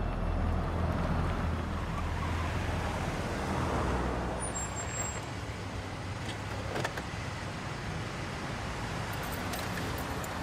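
A car's engine running with a steady low hum as the car drives up and sits idling.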